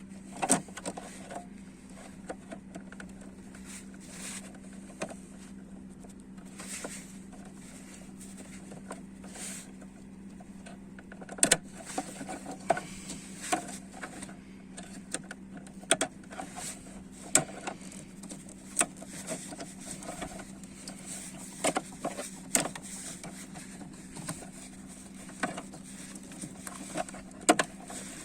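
Sharp plastic clicks and knocks of wiring-harness connectors being unlatched and pulled off a BMW engine control unit (DME), coming more often in the second half, over a steady low hum.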